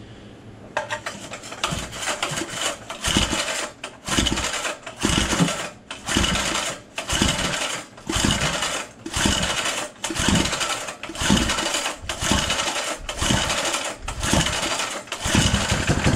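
Old Briggs & Stratton small engine being cranked by its pull-cord recoil starter again and again, about fifteen pulls at roughly one a second, each a short burst of turning over with a brief gap between. It doesn't catch and run: a first start after years of storage, with rust found in the tank.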